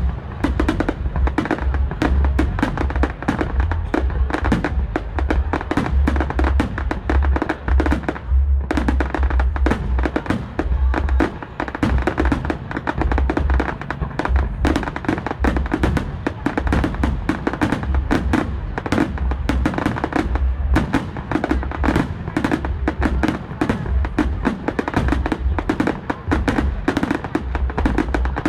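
Fireworks going off in rapid succession, a dense run of sharp bangs several per second with deep booms underneath, continuing without a break; music plays along with them.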